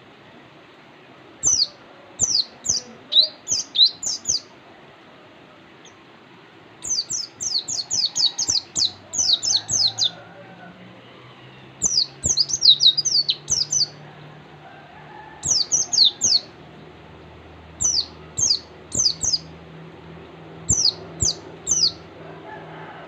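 White-eye (pleci) chirping in quick runs of short, high, falling notes, a new burst every one to two seconds.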